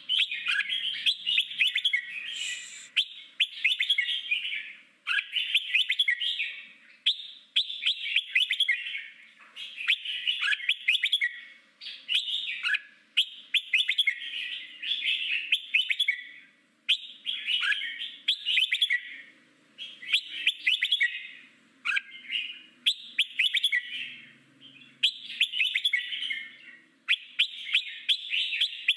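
Red-whiskered bulbul singing its wild-type song. Short warbled phrases of about a second each come one after another with brief pauses between them.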